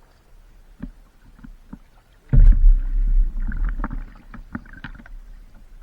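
Water sloshing and splashing around a stand-up paddleboard, with knocks against the board, as a swimmer struggles to climb back on. It starts suddenly about two seconds in as a loud, low, churning rumble.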